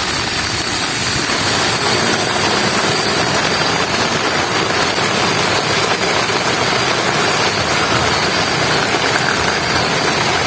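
Heavy rain falling steadily, a loud, even rushing hiss.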